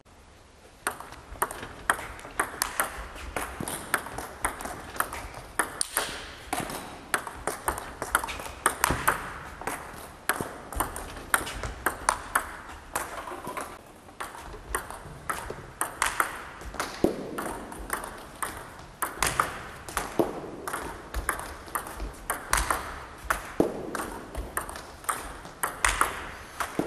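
Celluloid-style table tennis balls clicking off rubber bats and the table, a fast stream of sharp hits, a few a second, as in a multiball practice drill.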